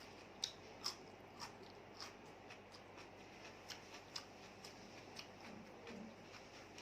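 Faint eating sounds: scattered small clicks and smacks of a meal being eaten, the two loudest within the first second.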